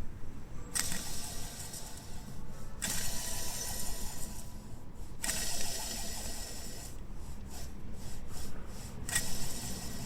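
Rebuilt alternator on a Honda Prelude running with the engine idling, giving a harsh grinding, ratchet-like noise over a steady low rumble. The noise comes and goes in stretches of a second or two and flickers near the end. It is the sign of a worn alternator rear bearing.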